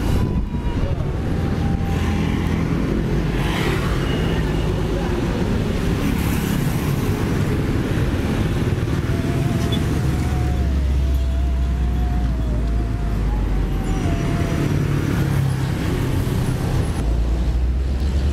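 Diesel dump-truck engines running with a low rumble, with road traffic passing.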